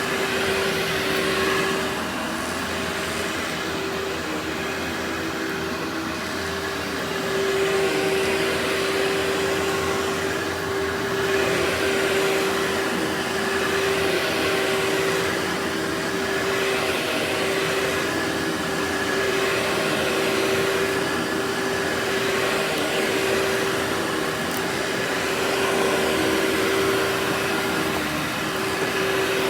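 Workhorse vacuum cleaner running steadily: a rushing airflow with a constant motor whine, swelling and easing slightly every couple of seconds.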